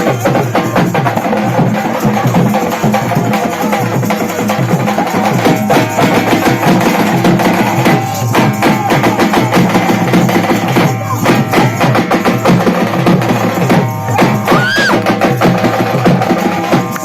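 Loud, busy percussion-driven music: fast, steady drumming with sharp wooden-sounding strokes over a sustained pitched accompaniment, and a brief rising-and-falling whistle-like glide near the end.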